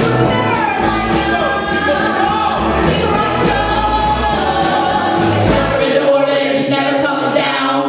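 A group of two women and a man singing loudly together over backing music with a bass line.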